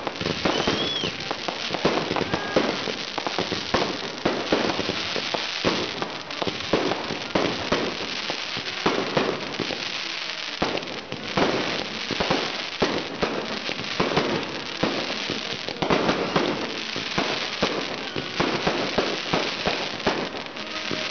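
Fireworks going off in rapid succession: dense crackling with many sharp bangs, easing briefly about halfway through.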